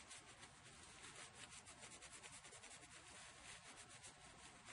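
Polishing cloth rubbed quickly back and forth over a soldered glass pendant: a faint, even swishing of many short strokes.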